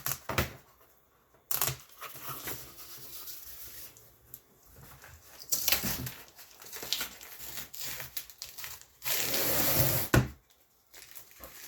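Tape being peeled and ripped off packaging in several short rasping pulls, with handling noise between them. The longest and loudest pull comes about nine seconds in and lasts about a second.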